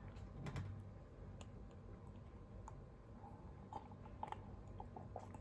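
A person quietly sipping coffee from a mug, with faint scattered mouth clicks and swallows.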